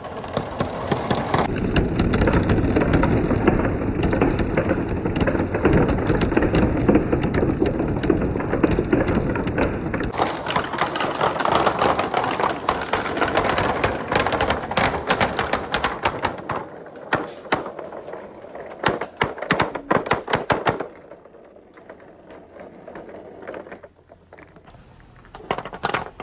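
A large mass of glass marbles rolling and clattering down a marble run track in a dense, continuous rattle of clicks. It thins to scattered single clicks for the last few seconds as the last marbles come through.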